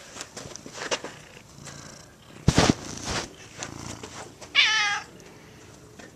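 A domestic cat meowing once, a short slightly wavering cry about four and a half seconds in. Before it, about two and a half seconds in, comes a louder brief scuffing thump.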